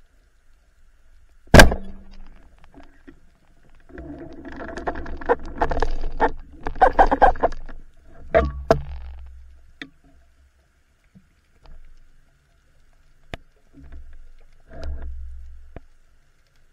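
A speargun fires underwater with one sharp, loud crack. Several seconds of clattering and rustling handling noise follow, then a few sharp clicks and scattered light knocks.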